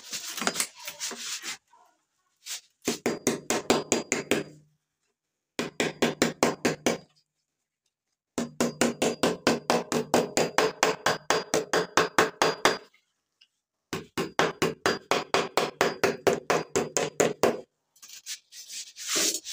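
Rapid light hammer taps on metal, about seven a second, in four runs of a few seconds each: the crimp tabs of a radiator's header plate are being tapped closed over a new plastic tank.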